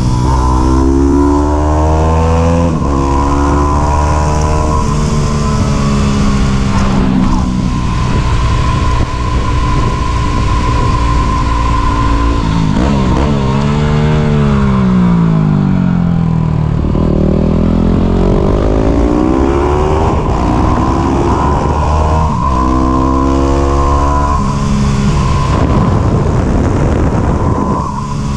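Yamaha WR250 motorcycle engine being ridden hard, its pitch repeatedly climbing as it revs up and dropping back off, over a constant rush of wind noise.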